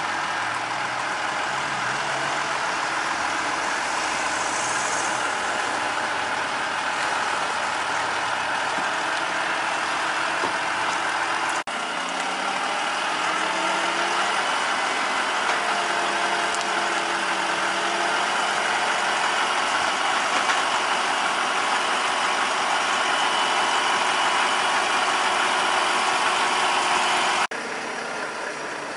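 Volvo heavy-haulage truck's engine running steadily as the truck and its long multi-axle trailer creep along under a heavy load. The sound shifts abruptly twice, about a third of the way in and near the end.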